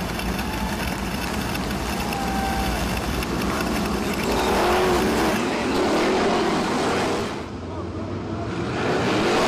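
Several winged sprint cars' V8 engines running together in a pack, their pitch rising and falling as the drivers work the throttles. The sound dips briefly near the end.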